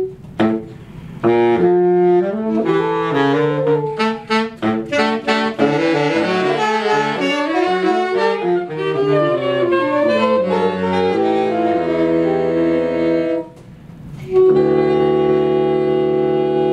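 A saxophone ensemble plays moving lines that settle onto a held chord, then after a short break plays a long final chord. The soprano saxophone is a school loaner that the player could not tune, so it clashes out of tune with the rest.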